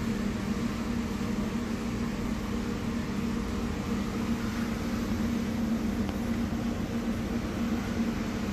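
Steady low machine hum with a constant hiss over it, unchanging throughout.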